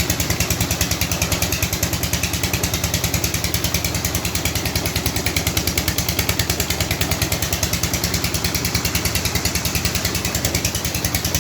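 An engine running steadily with an even, rapid beat of about seven pulses a second.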